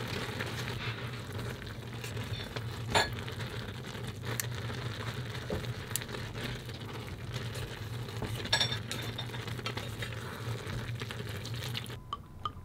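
Buldak instant noodles being stir-fried in a pan: steady sizzling over a low hum, with a few sharp clicks of a utensil against the pan. Music with a plucked beat starts near the end.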